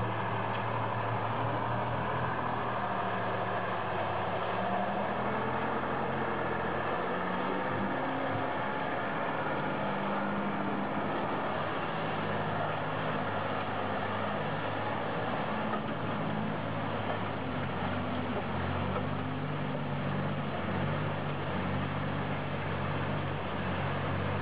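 Heavy off-road log truck diesel engines running hard under load through mud and water, a steady engine drone whose low tones shift as the load changes.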